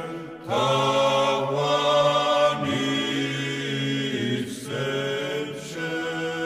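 A choir chanting a cappella in sustained chords over a steady held low note, with short breaks between phrases.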